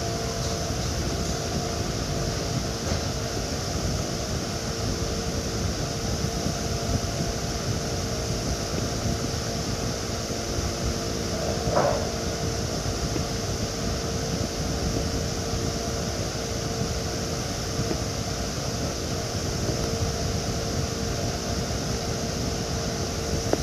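Steady background hum and hiss with a faint constant tone running through it, like a running fan or air-conditioning unit. One short, slightly louder blip about halfway through.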